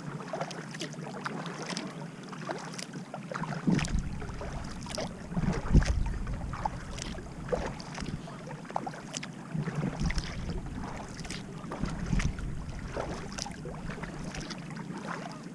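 Kayak paddle strokes: the blades dip and pull through calm water, with splashes and drips running off them in quick, irregular ticks. A few low rumbles of wind on the microphone come and go, the strongest about six seconds in.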